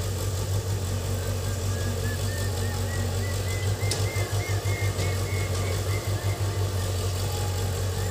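JCB tracked excavator's diesel engine running with a steady low drone, its level pulsing as the hydraulics work the arm and bucket in the mud. A run of faint, quick high chirps sounds over it for a few seconds.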